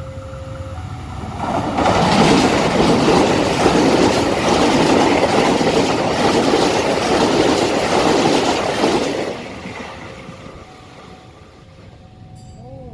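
A train passing close at speed: a loud rush of wheels and wagons builds about a second and a half in, holds for some eight seconds, then fades away.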